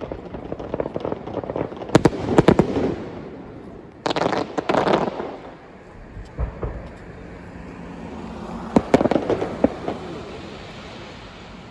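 Aerial fireworks bursting: sharp bangs about two, four and nine seconds in, each followed by crackling and a rolling echo.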